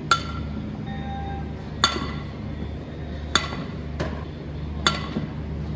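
Softball bat hitting pitched softballs four times, about a second and a half apart, each a sharp crack with a short ringing tail. A steady low hum runs underneath.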